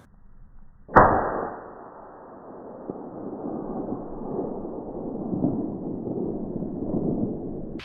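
A single shot from a suppressed Tikka T3 .260 Remington rifle about a second in, followed by several seconds of drawn-out echo that swells and fades.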